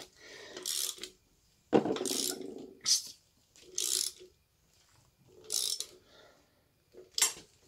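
Ratchet wrench clicking in about six short bursts as it turns the crankshaft bolt on a Ford Essex V6's harmonic balancer.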